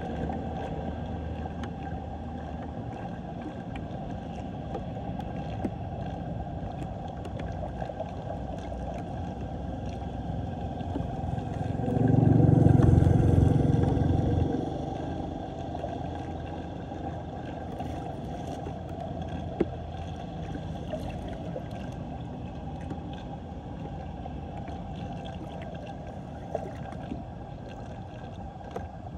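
Floodwater draining in a whirlpool down an unclogged storm drain: a steady, low rush of water. About twelve seconds in, a louder low rumble swells for two or three seconds and then fades back.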